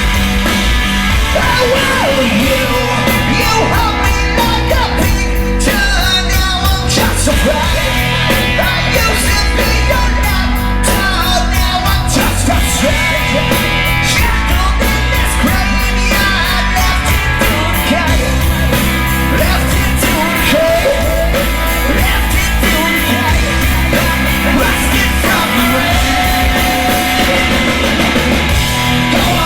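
A rock band playing live: distorted electric guitars, bass and drums at full volume, with a male lead singer singing and shouting over them, heard loud and slightly distorted as if recorded from the crowd.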